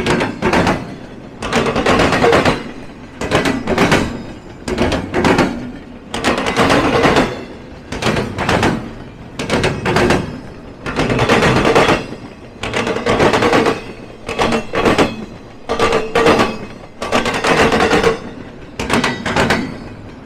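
Train wheels hammering over a railroad diamond crossing: a steady run of loud clattering knocks, in groups about every second, as the cars roll across.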